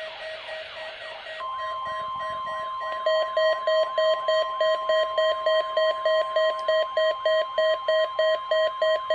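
A NOAA Weather Radio receiver's alarm beeping about three times a second, set off by a weekly test broadcast, louder from about three seconds in. Under it, from about a second and a half in, the broadcast's steady 1050 Hz warning alarm tone sounds.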